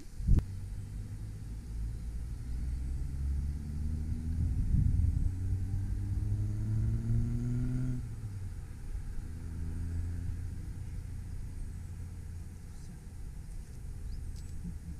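A motor vehicle's engine with a low rumble, its pitch rising for several seconds as it speeds up. It breaks off abruptly about eight seconds in, leaving a steadier low rumble.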